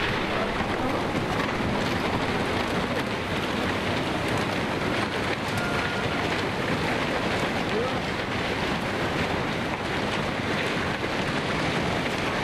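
A torrent of floodwater surging and churning, a steady rushing noise that does not let up.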